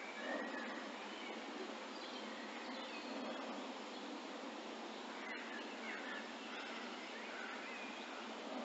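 Steady outdoor background hiss with faint bird chirps scattered through it.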